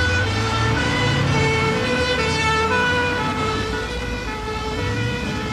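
Ambulance siren sounding, its tone stepping back and forth between pitches, over the rumble of the vehicle's engine.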